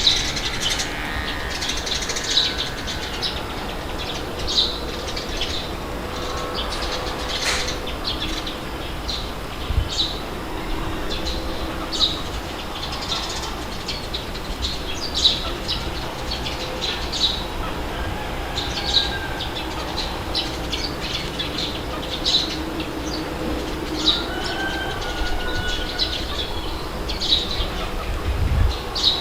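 Birds chirping in short calls every second or two over a steady low rush of wind.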